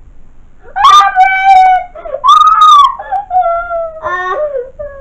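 A person mock-crying in loud, drawn-out wails, about four long wavering cries in a row, each sagging in pitch at its end.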